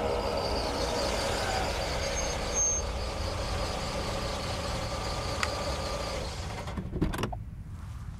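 Car interior with the engine running and a steady road rumble, which quietens near the end after a few clicks and knocks as the car is stopped.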